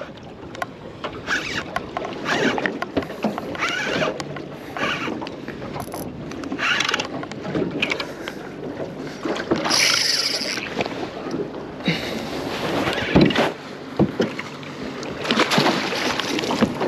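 Water splashing and slapping around a fishing kayak in irregular bursts, with a few sharp knocks on the hull, while a hooked mackerel is fought alongside.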